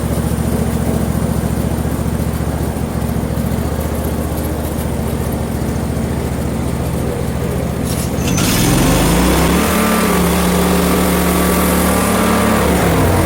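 Portable sawmill's small gasoline engine running steadily at low speed, then throttled up about eight seconds in and held at a higher, steady speed.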